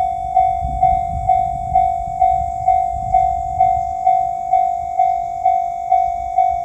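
Japanese railroad crossing warning bell ringing its steady "kan-kan" chime, a little over two strikes a second, each note fading before the next, over a faint low rumble.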